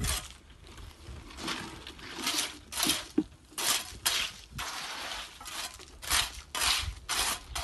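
Shovel scraping and scooping through gravelly concrete mix, a string of short gritty scrapes roughly once a second.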